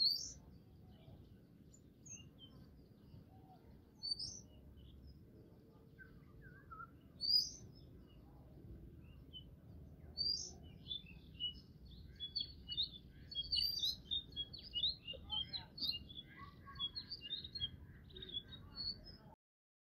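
Small birds chirping over a low steady background hiss. Single short, high chirps come every few seconds, then a busier run of many overlapping chirps starts about twelve seconds in and stops abruptly just before the end.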